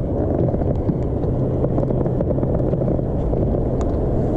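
Steady low engine rumble with a steady hum.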